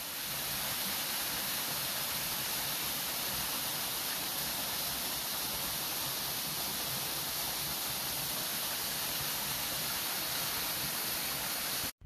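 Creek water rushing over a small rocky cascade, a steady hiss that cuts off suddenly near the end.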